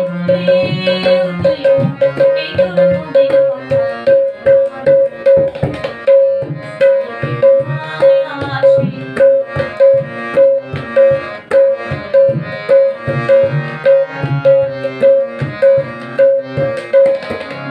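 Tabla being played: a steady, fast rhythm of ringing strokes on the small dayan at its tuned pitch, with bass strokes on the large bayan that slide in pitch under the pressing palm.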